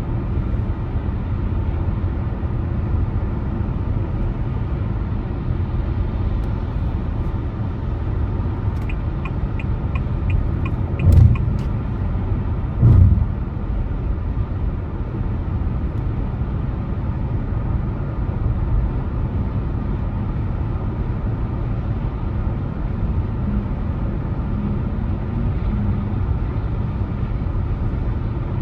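Car driving along a road: a steady low rumble of tyres and engine. Partway through, a quick run of light ticks, about three a second, then two heavy thumps about two seconds apart.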